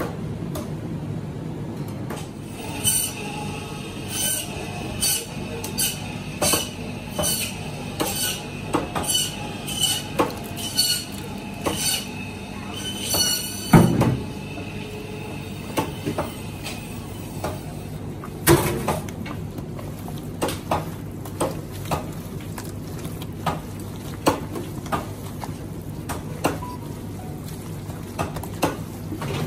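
Metal dishes and utensils clinking and knocking in a kitchen, roughly once a second with a ringing note, over a steady low hum. A heavy thump comes about halfway through and another a few seconds later, then lighter, irregular clicks.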